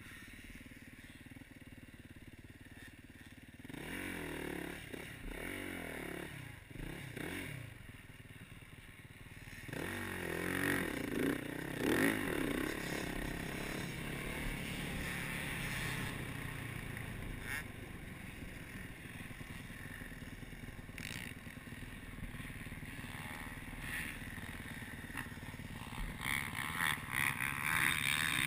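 Yamaha YZ450F four-stroke dirt bike engine, heard from a helmet camera: lower and steadier for the first few seconds, revving up and down in short rises from about four seconds in, then running on under throttle while riding from about ten seconds in.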